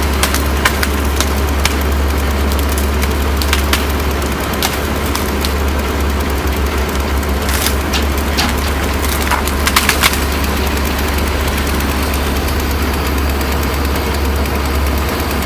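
A heavy engine running steadily with a deep, even hum, and scattered sharp cracks and knocks of wood during the first ten seconds, thickest around eight to ten seconds in.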